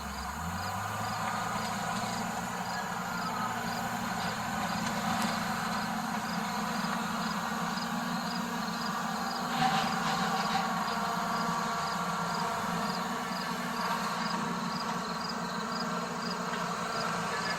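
Diesel engine of heavy land-clearing machinery running steadily, with a faint high ticking repeating about twice a second and a brief louder knock about ten seconds in.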